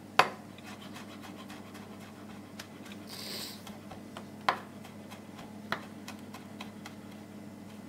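Chef's knife crushing and mincing a garlic clove on a plastic cutting board: a sharp knock just after the start, then light, scattered taps of the blade, with a short hiss a little after three seconds and two louder knocks later on. A steady low hum runs underneath.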